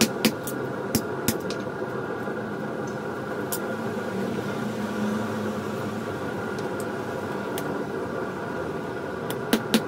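Hammer blows on steel at a small stump anvil set in a concrete block base. A quick run of strikes stops just after the start, a few single blows follow, and then a steady mechanical hum carries on alone until quick rhythmic hammering starts again near the end.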